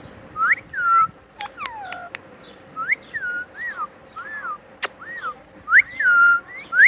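Pet parrot whistling: a string of short, clear whistled notes that rise and fall, with a few sharp clicks and one louder click about five seconds in.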